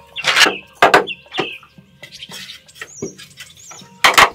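Four sharp knocks, the loudest near the end, with small birds chirping between them.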